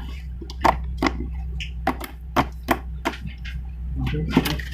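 Slime being squeezed and pressed by hand, giving irregular sharp clicking pops, about two or three a second, over a steady low hum.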